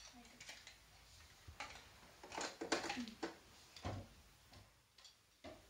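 Scattered small clicks and knocks from handling dolls and plastic doll furniture in a dollhouse, with a quick cluster of taps about halfway through.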